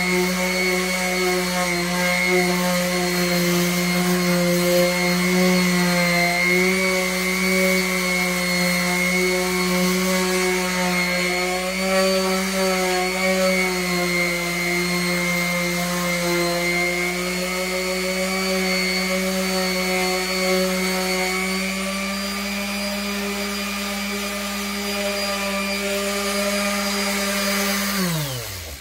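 A motor running steadily at constant speed with a hum and whine, then switched off near the end, its pitch falling quickly as it winds down to a stop.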